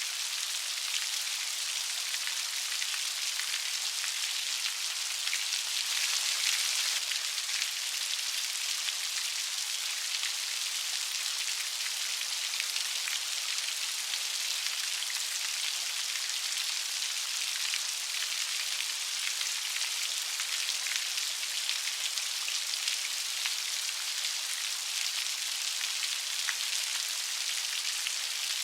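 Steady light rain: an even patter of drops on a surface, with a brief slight swell about six seconds in.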